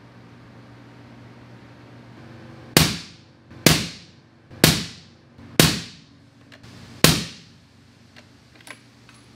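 Five suppressed rifle shots, most about a second apart and the last after a slightly longer gap; each is a sharp crack with a short echoing tail. The rifle is a 300 PRC fitted with an AB Raptor suppressor, fired for decibel testing.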